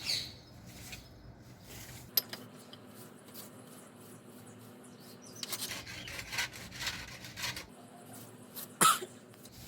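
Light rubbing and scraping as butter is spread over rolled-out puff pastry dough, in several short strokes in the second half. A single click comes about two seconds in, and a brief falling squeak near the end is the loudest sound.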